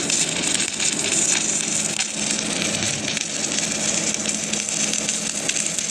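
Automatic welding machine running a test weld: a steady crackling hiss of the arc over a constant low machine hum.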